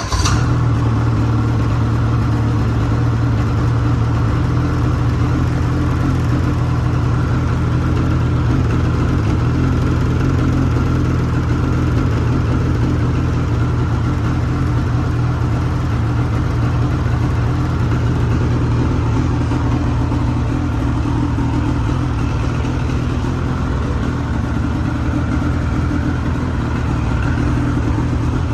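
Ski-Doo snowmobile engine idling steadily, its exhaust note even throughout with no revving.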